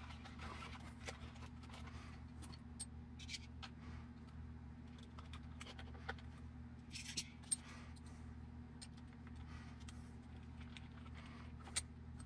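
Handling of a 1/8 scale RC buggy chassis and its parts: faint, scattered clicks and knocks of plastic and metal as the car is turned over and a rear shock is fitted, with a few sharper clicks about seven seconds in and near the end. A steady low hum runs underneath.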